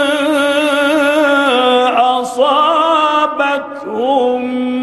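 A man reciting the Qur'an in the slow melodic mujawwad style, holding long ornamented notes with a wavering vibrato. He breaks briefly for breath about three and a half seconds in, then resumes on a rising note.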